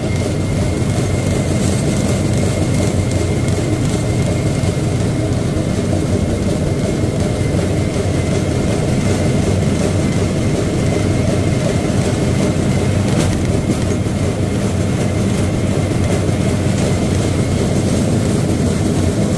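Steel wheels of a pedal rail bike rolling along the rails: a steady, loud rumble with a faint thin high whine over it.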